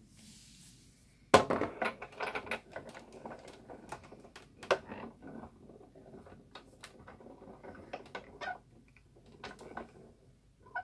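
Sizzix Big Shot die-cutting machine being hand-cranked to run the GoPress and Foil hot-foil plate through: a sharp knock about a second in, then a string of irregular clicks and clunks from the crank and rollers.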